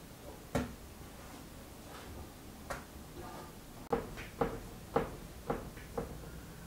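Hands kneading bread dough on a floured wooden board, each push giving a short knock. Two single knocks come early, then a run of five, about two a second, from about four seconds in.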